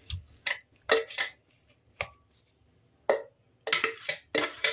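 Plastic food processor bowl and spatula knocking and scraping as minced chicken breast is emptied into a glass mixing bowl: about ten irregular short knocks with quiet gaps between.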